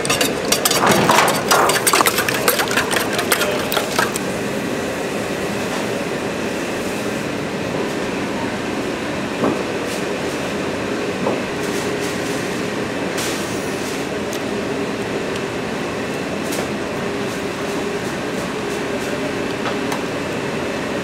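Commercial kitchen noise: rapid clattering of metal cookware and utensils for the first four seconds or so, then the steady roar of the burners and exhaust ventilation with a faint hum.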